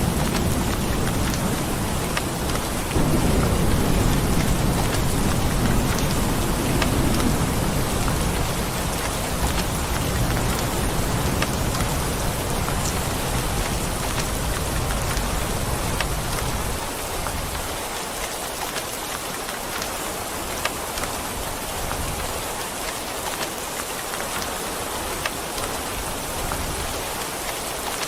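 Steady heavy rain with scattered drop ticks, under a long low rumble of rolling thunder that swells about three seconds in and dies away a little past halfway.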